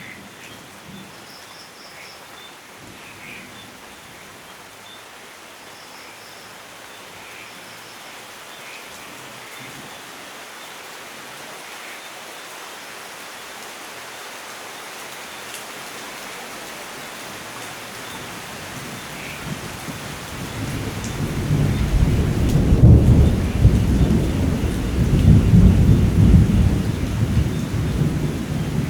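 Steady rain falling, slowly growing louder, then a long low rumble of thunder that starts about two-thirds of the way through and is the loudest sound.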